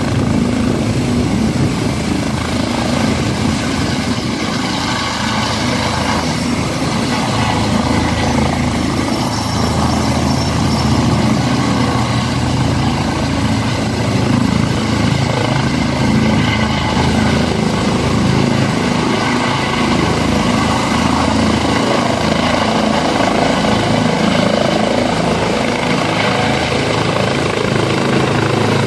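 Eurocopter EC135 twin-turbine air ambulance helicopter lifting off, hovering low and climbing away. Steady, loud rotor and engine noise with a thin, high, steady turbine whine.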